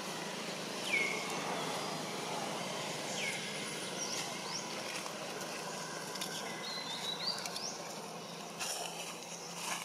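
Outdoor ambience with birds calling: short whistled notes that drop in pitch and then hold, and quick rising chirps, repeated every couple of seconds. A couple of brief rustles come near the end.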